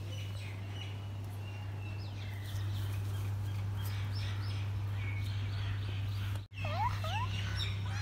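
Birds chirping in short, scattered calls over a steady low hum, with a brief dropout about six and a half seconds in.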